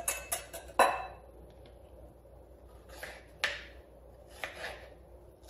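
Wire whisk clinking rapidly against a glass bowl as chia seeds are stirred, stopping about a second in with one last louder clink. Then a few knife strokes cutting strawberries down onto a wooden cutting board, in two pairs.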